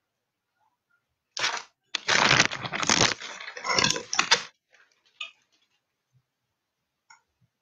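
Handling noise from a phone's microphone: loud rubbing and crackling as the phone is fumbled and its lens covered, for about three seconds starting a second and a half in, followed by a few faint clicks.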